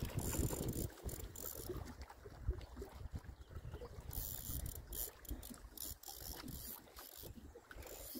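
Spinning reel being cranked with a ratcheting gear sound while reeling in a hooked carp. Low wind rumble on the microphone underneath.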